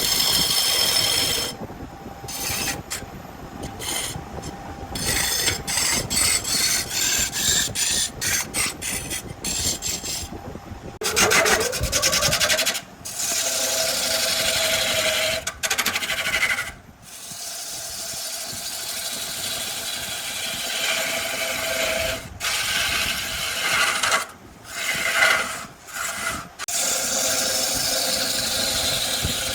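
Woodturning on a lathe: a tool cutting and scraping a spinning log, in short quick passes for about the first ten seconds, then in longer continuous cuts with a steady hum under them.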